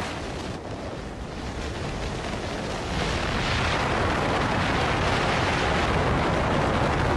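Wind rushing over the microphone of a car moving at speed: a steady rush of noise that grows louder about three seconds in.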